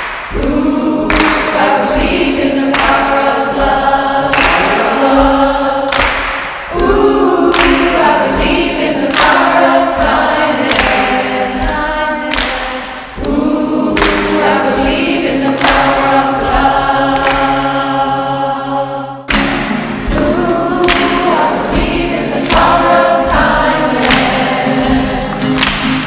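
Background music: a group of voices singing together like a choir, over a steady beat of about one stroke a second.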